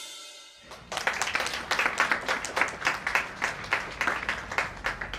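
The last note of a children's worship song fades out, then about a second in a small audience starts clapping: quick, distinct handclaps that keep going.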